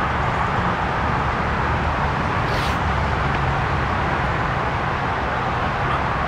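Steady outdoor background noise: an even low rumble with a hiss above it and no distinct event.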